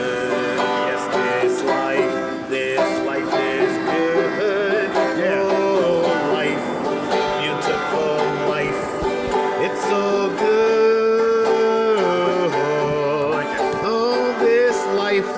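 Five-string banjo and acoustic guitar strumming a country-folk song together through G, Dsus4 and C chords, with a man singing a melody over them.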